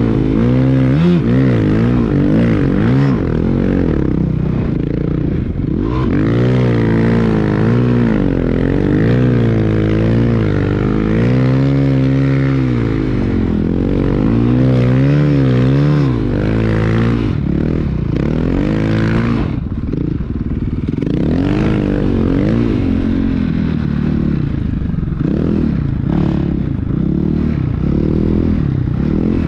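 Snow bike's 490 big-bore dirt bike engine on a Yeti 120 track kit, revving up and down again and again as it rides through deep powder.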